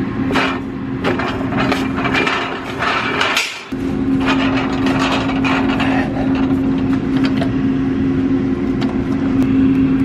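Engine idling steadily, with metal clanks and rattles from a tillage tool's drag-harrow adjustment handle and pin as they are worked back and forth; the handle binds and looks bent. The sound breaks off for a moment about three and a half seconds in.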